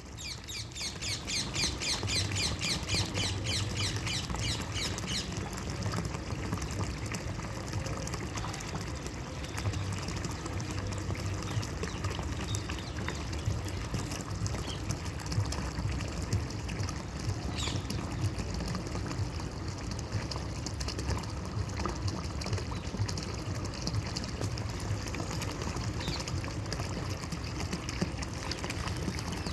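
Water flowing and pouring steadily, as from a stream or small fall. During the first five seconds a bird calls with a rapid series of high repeated chirps over it.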